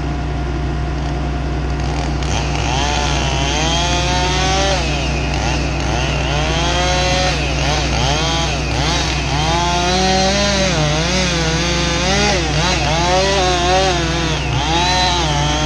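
Husqvarna 576 XP two-stroke chainsaw with a 36-inch bar cutting through a big maple, its pitch rising and falling over and over as the saw bogs and revs in the cut. A steady low engine drone runs underneath.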